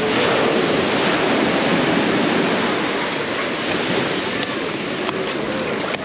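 Small Mediterranean waves washing and breaking on a sandy beach: a steady rush of surf, a little louder in the first half, with faint voices of bathers mixed in.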